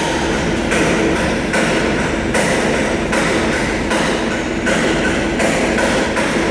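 Metal being struck repeatedly with a hammer, about one blow a second, each with a ringing tone, over continuous workshop clatter.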